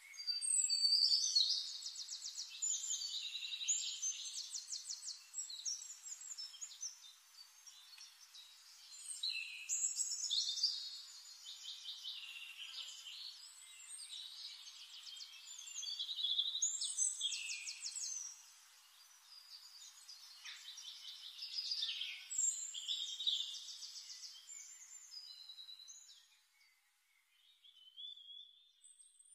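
Forest birdsong: a songbird sings a bright, fast-trilling phrase four times, with a short pause between phrases.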